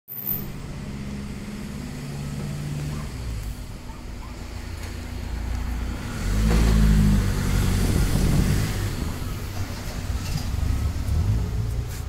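A car engine running close by on the street, a steady low hum that grows louder about six seconds in and eases off again after about nine seconds.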